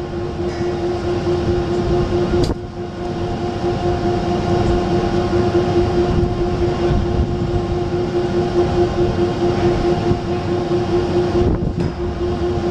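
Gantry crane's hoist running steadily while lowering a stoplog lifting beam: a steady whine over a low rumble.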